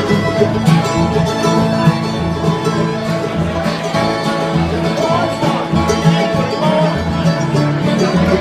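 Live acoustic bluegrass band playing an instrumental passage: banjo and guitar picking, with fiddle, over a steady low beat.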